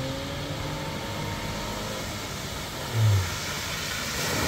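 Maruti Suzuki Alto hatchback driving through floodwater across the road, its engine running. A hiss of water spray grows louder near the end as the car comes closer.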